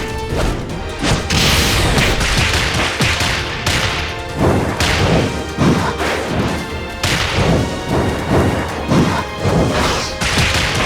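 Anime-style fight sound effects: a rapid run of punch and kick impacts, thuds, crashes and whooshes, with music underneath.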